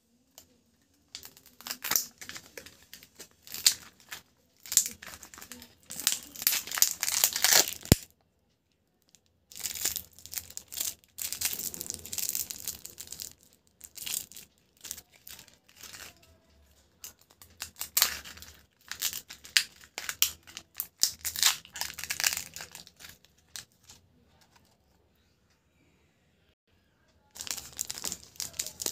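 Foil lid being peeled and torn off a plastic chocolate egg, with crinkling of foil and plastic packaging in bursts separated by short quiet pauses. A single sharp snap about eight seconds in.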